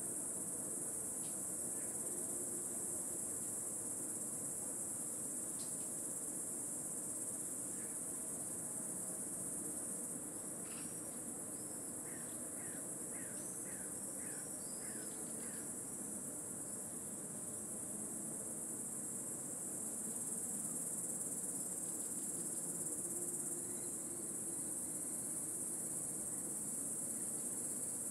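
A dense chorus of singing insects: an intense, steady, high-pitched drone that doesn't let up.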